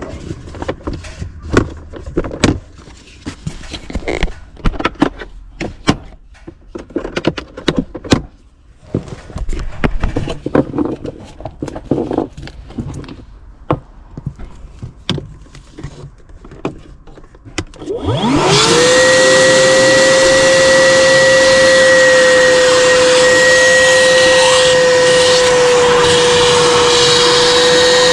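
Knocks and clatter of tools being handled, then about 18 seconds in a wet/dry shop vacuum switches on, its motor whine rising and settling into a loud steady rush, used to suck standing condensate water out of the drain pan.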